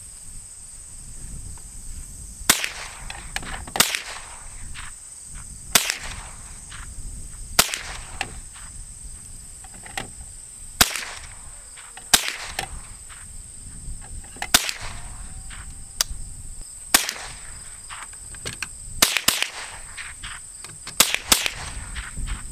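A scoped .22 rimfire rifle firing about a dozen single shots, sharp cracks spaced one to two seconds apart. Near the end they come faster, some in quick pairs.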